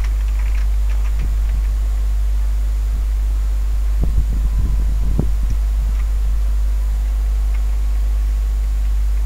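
Steady low electrical hum with a constant hiss, the background noise of the recording. A few soft low thumps come about four to five seconds in, with scattered faint clicks.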